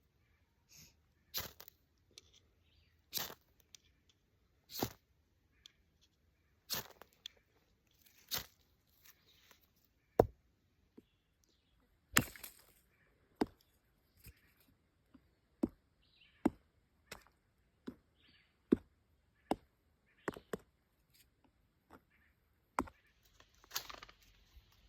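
A knife blade chopping into wood in a series of sharp single knocks, about one every one and a half seconds at first and coming closer to one a second in the second half.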